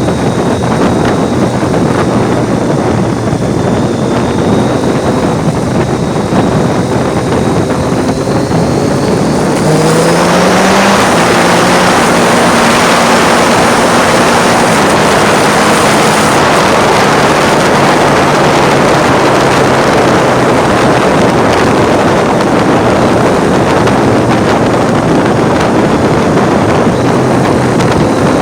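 Triumph Street Triple's 675 cc three-cylinder engine running under way. About a third of the way in its pitch climbs as the bike accelerates, and from then on heavy wind rush on the phone's microphone largely covers it.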